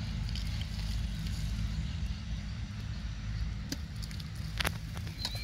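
A steady low rumble, with a few faint sharp clicks near the end as hands dig in the wet mud.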